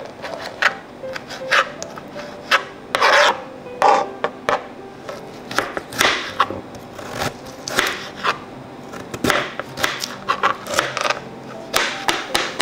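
Small kitchen knife cutting bell pepper and peeled potato on a cutting board: irregular scraping cuts and knocks of the blade against the board, some much louder than others.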